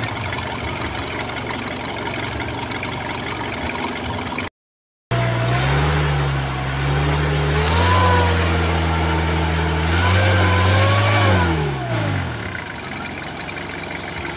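Kia Sportage engine idling steadily, then, after a brief dropout, revved: the pitch rises and holds high twice, then falls back to idle near the end.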